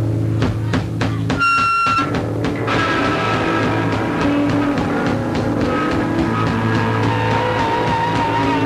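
Live punk rock band on stage: a held guitar chord breaks into a run of drum hits in the first couple of seconds, then the full band comes in with electric guitar, bass and drum kit playing a rock song.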